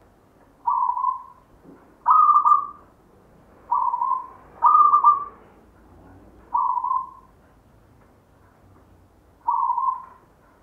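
Zebra dove (perkutut) singing: six short cooing phrases, each about half a second long, spaced one to three seconds apart.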